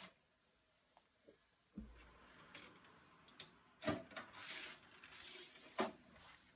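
A circuit board sliding out of its slot in an Avaya G450 media gateway's metal chassis: a soft scraping rub, with a few faint knocks and clicks as the board is handled.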